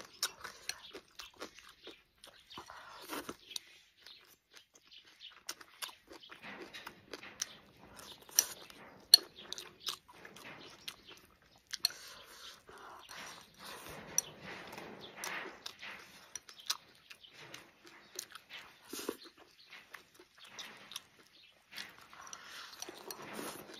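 Close-up mouth sounds of eating: chewing and crunching a mouthful of rice with stir-fried pickled sour long beans and minced pork, with irregular small clicks that fit chopsticks tapping the porcelain bowl.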